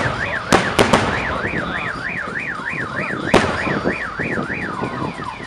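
Aerial fireworks shells bursting with sharp bangs: one right at the start, three in quick succession about half a second in, and another a little after three seconds. A car alarm siren warbles up and down about three times a second, stopping near the end.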